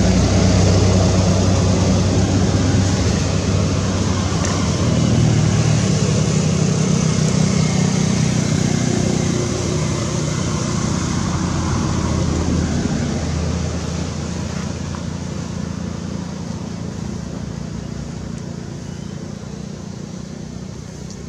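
A motor engine running steadily with a low hum that slowly fades away.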